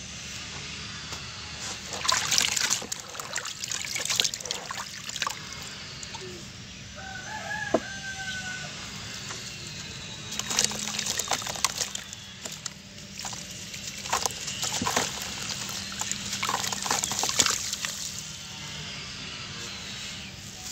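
A sand-and-cement block is dipped and crumbled into a basin of water, giving repeated irregular splashes, drips and gritty sloshing. A short pitched call sounds once in the background about seven seconds in.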